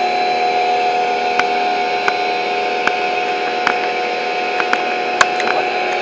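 Sun Joe electric pressure washer running steadily: a constant motor-and-pump hum over the hiss of the water jet on the deck boards, with a few sharp clicks scattered through.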